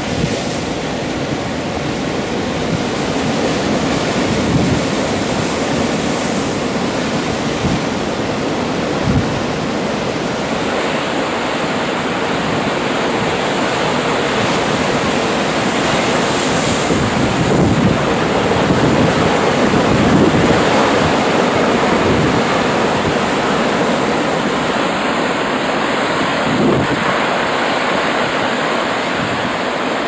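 Storm surf: heavy waves breaking and washing over a rocky breakwater in a continuous loud rush that swells and eases, with a few low thumps, and wind buffeting the microphone.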